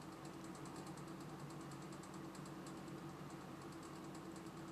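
Faint, irregular rapid clicking over a steady low hum.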